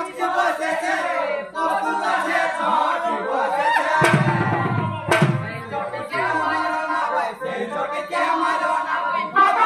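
Voices singing together over amplified music from a Manasa Mangal folk-theatre stage, with two heavy thumps about four and five seconds in.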